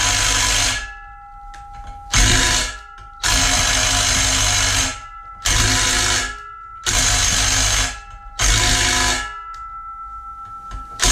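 Cordless impact driver hammering at a corroded, frozen bolt on a Leslie RS3L train horn, in about six short runs with pauses between, worked a little at a time until the bolt breaks free. A thin metallic ringing lingers in the pauses between runs.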